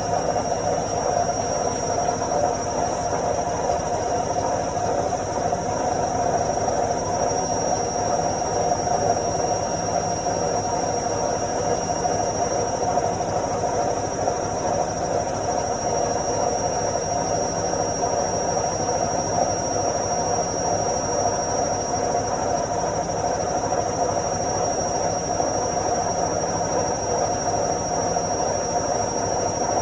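Washing machine running its spin cycle: a steady, even whirring rumble with a constant high whine over it.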